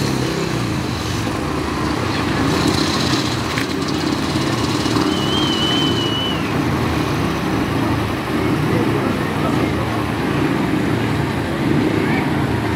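Speedway motorcycles' single-cylinder engines running steadily at low revs, with a crowd murmuring underneath. A brief high wavering whistle sounds about five seconds in.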